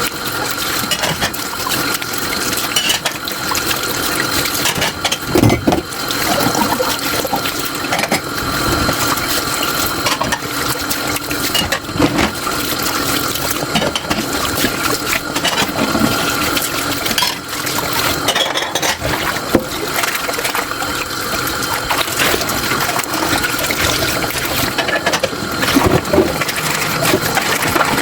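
Tap water running into a kitchen sink while dishes are washed, with frequent short clinks of dishes knocking together.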